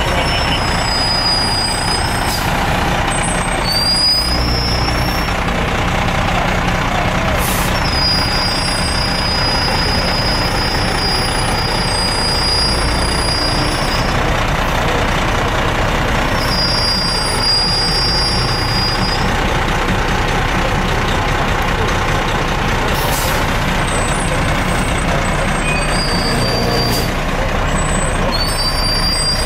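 Fire engines creep past with their diesel engines rumbling, along with several long high-pitched brake squeals and a few short hisses of air brakes.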